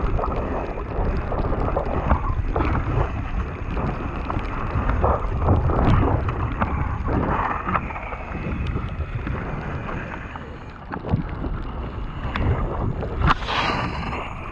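Mountain bike tyres rolling fast over a wet gravel and mud trail, with wind buffeting the action camera's microphone and frequent clicks and knocks from stones and the bike rattling. A louder knock comes near the end.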